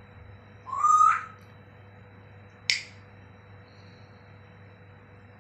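African grey parrot giving one rising whistle about a second in, followed by a single sharp click.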